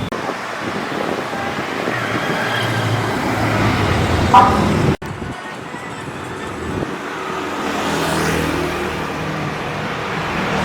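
Busy street traffic: a steady wash of passing vehicles, with a short horn toot a little over four seconds in, the loudest moment. The sound cuts out for an instant about five seconds in, then the traffic carries on.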